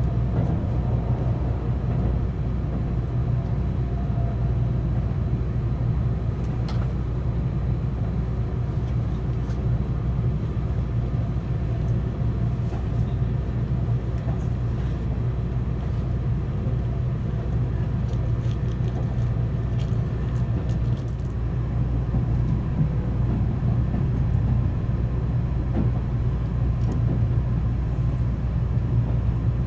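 Steady low rumble of a Seibu Laview (001 series) electric limited express, heard inside the passenger cabin while running at about 40 km/h.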